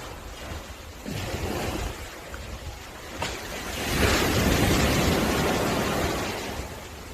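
Sea waves washing onto a beach, swelling and ebbing; the biggest wave surges in about four seconds in and fades away over the next two seconds.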